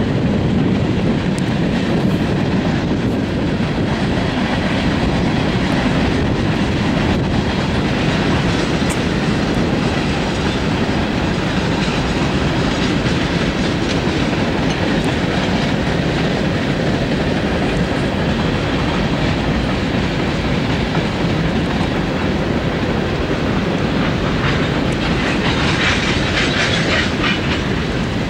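Freight cars of a CSX manifest train rolling past: tank cars, then open-top cars, a loud steady rumble of wheels on rail with clickety-clack over the joints. A brighter, higher rattle rises in the last few seconds.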